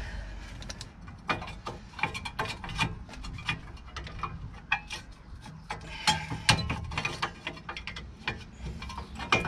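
Rapid, irregular metallic clicks, knocks and scrapes of a hand tool working the 2018 Peugeot Boxer's rear drum brake shoes, return springs and adjuster on the backing plate.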